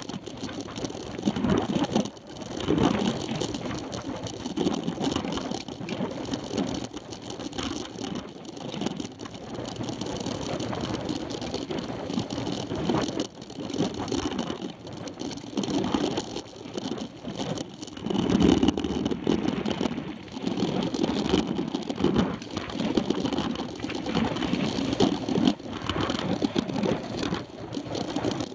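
Wind buffeting the microphone of a handlebar-mounted camera, mixed with the rumble and rattle of a mountain bike rolling on a dirt road. It swells and fades unevenly every second or two.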